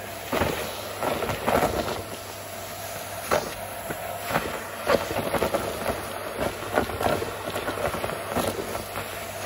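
Dyson Light Ball upright vacuum running through its hose wand. Irregular clicks and rattles sound as pieces of shredded card and paper are sucked up the tube.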